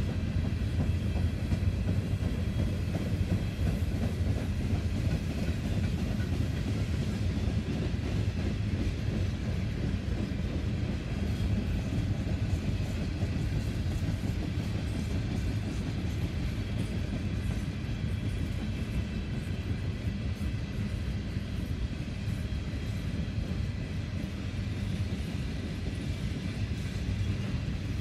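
Empty Norfolk Southern coal hopper cars rolling steadily past: a continuous rumble of steel wheels on the rails.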